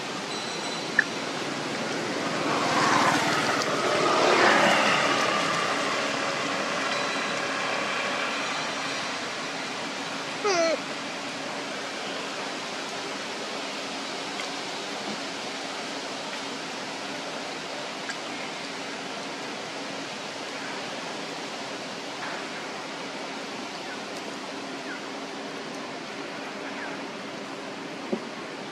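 Steady outdoor background hiss with a faint low hum, swelling louder with a pitched note about three to five seconds in, and a short squeak near ten seconds.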